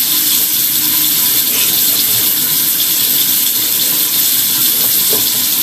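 Steady rushing hiss of water in a sewer drain line, even and unbroken.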